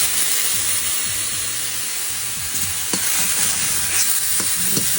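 Tofu dregs stir-frying in a hot wok: a loud, steady sizzle with a few light spatula knocks. The sizzle cuts off right at the end.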